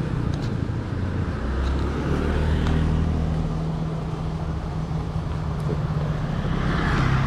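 A motor vehicle engine running steadily with a low hum, and road noise swelling near the end as traffic goes by.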